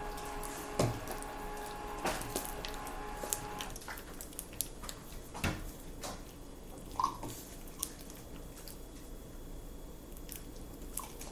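Sticky homemade glue slime being kneaded by hand, giving scattered wet squelches and small sticky pops as it pulls off the fingers. A faint steady hum stops about four seconds in.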